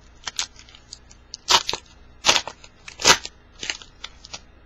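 Foil wrapper of a baseball card pack being torn open and crinkled: a run of crackles with three loud rips, each about a second apart.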